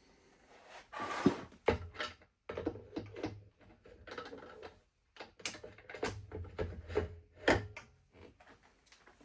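Metal lathe parts being handled and set down on a bench: a string of clunks and clicks with short scraping between them, loudest about a second in and again about seven and a half seconds in.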